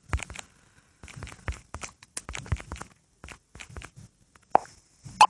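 Irregular light taps and clicks of fingers on a phone touchscreen while typing a message, with two short louder pops near the end.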